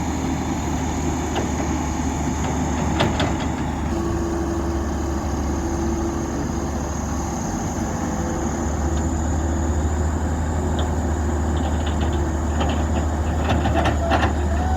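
Heavy diesel engine of road-construction machinery running steadily with a low drone and a constant high whine, with a few short knocks about three seconds in and several more near the end.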